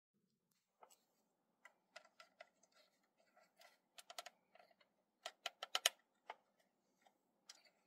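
Faint, scattered small clicks and taps of hard plastic scale-model parts being handled: a 1/35 model helicopter's gun turret with brass barrels is worked into place under the fuselage nose. A quick run of clicks about five to six seconds in is the loudest.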